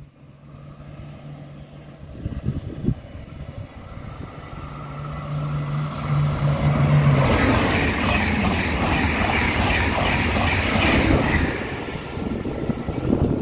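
A TGV 2N2 Euroduplex high-speed train approaching and running through the station at speed. Its sound grows from a faint low hum to a loud rush of wheels and air that peaks about halfway through and eases near the end.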